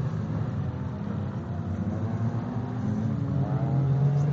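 Engines of autocross stock cars racing on a dirt track, a steady drone, with an engine note climbing near the end as a car accelerates.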